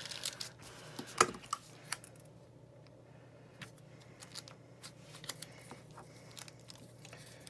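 Light clicks, taps and rustles of hands handling stickers and wax paper on a planner page, with a sharper tap about a second in.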